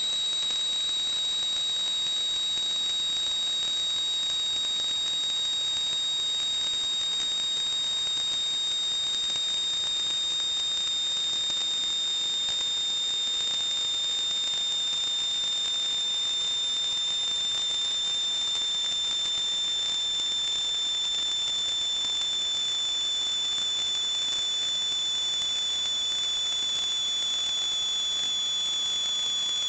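Water plumbing whistling: a steady high-pitched whistle over a hiss, with a second fainter whistle above it, the pitches drifting slowly without a break.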